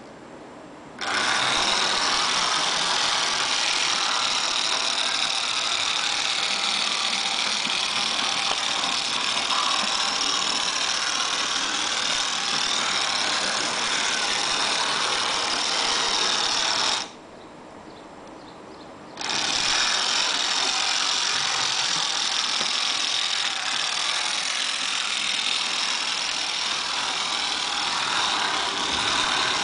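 Small electric motor and gears of a vintage Rivarossi model tram whirring steadily as it runs along the track. The sound starts about a second in, stops for about two seconds a little past halfway, then starts again.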